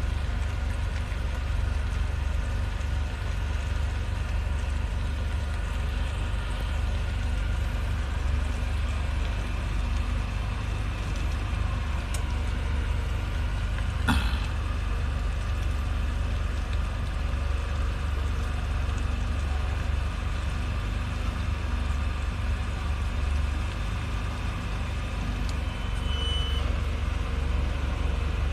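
Vehicles moving slowly: a steady low rumble with a faint engine hum, and one sharp click about halfway through.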